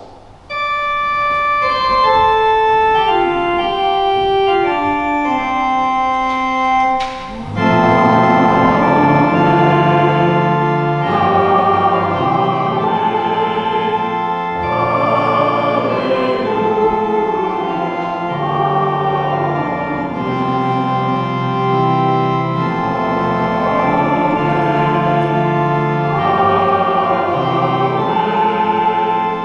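Church organ playing a closing voluntary after the benediction. It opens with a single line of held notes stepping downward, then about seven seconds in full chords with deep bass notes come in and continue.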